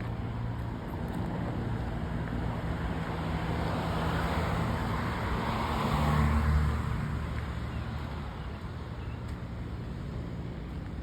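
A car passing by on a nearby road, its tyre and engine noise swelling to a peak about six seconds in and then fading away, over a steady low hum.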